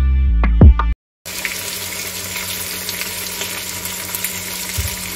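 Music with a beat for about the first second, then after a brief cut a steady sizzle of boiled mutton and onions frying in hot cooking oil in an aluminium pot.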